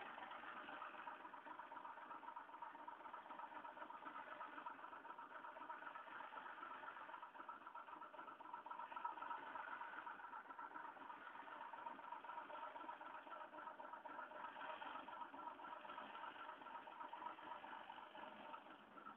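RABA truck's diesel engine idling steadily, with a fast, even pulse.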